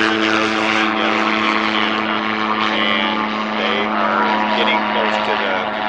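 Propeller-driven light aircraft flying low overhead, its engine and propeller making a loud, steady drone.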